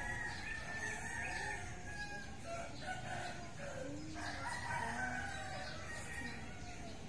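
Rooster crowing, several long calls in a row.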